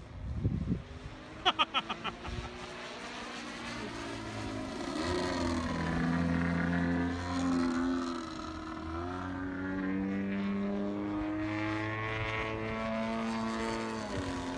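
Radio-control model aeroplane's motor and propeller in flight. Its pitch rises and falls with throttle changes and with the plane's passes. A quick run of sharp clicks comes about a second and a half in.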